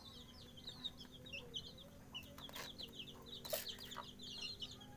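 Flock of 18-day-old kampung chicks peeping, a continuous run of rapid, high, short chirps. Two brief sharp noises cut in around the middle.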